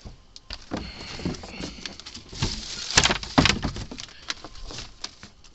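Irregular knocks, bumps and rustles of someone moving about a boat's cockpit and opening the cabin door, with the loudest thumps about three seconds in.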